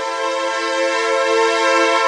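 Roland RS-09 Organ/Strings synthesizer's string voice playing a held chord, fed through a Roland RE-201 Space Echo.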